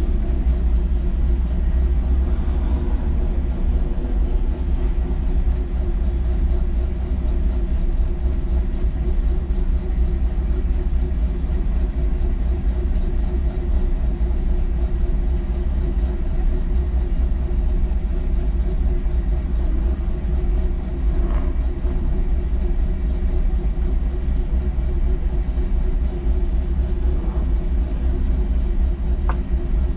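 Car engine running hard at a fairly steady pitch over a heavy low rumble of wind and road noise.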